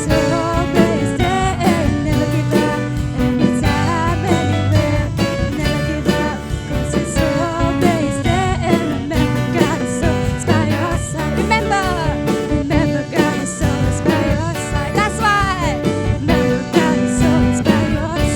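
Worship song with singing over guitar-led band accompaniment and a steady beat.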